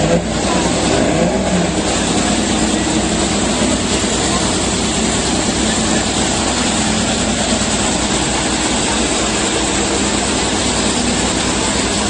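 Avro Vulcan bomber flying overhead, its four jet engines making a loud, steady rushing noise.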